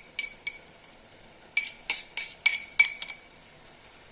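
Metal utensil clinking against a metal pan in sharp, ringing taps as chopped herbal ingredients are tipped into the pan: two taps, then a quick run of about six from about a second and a half in.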